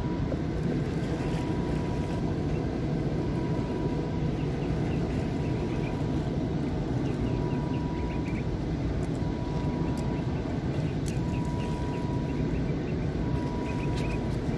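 Steady low outdoor rumble, with a faint thin high tone that comes and goes every second or so.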